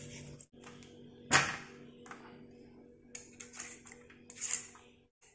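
Julienne grater scraping down a carrot in a few short rasping strokes, with a sharp knock about a second in as the vegetable or tool is set down on the tray. A steady low hum runs underneath.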